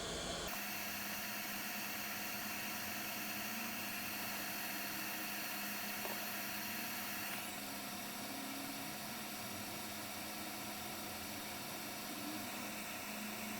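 Hot-air rework gun blowing a steady hiss of air onto a small steel part as it heats it, dropping slightly in level about halfway through.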